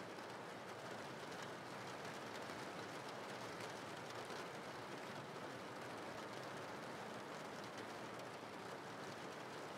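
Steady rain ambience: an even hiss of falling rain with fine patter of drops, unchanging throughout.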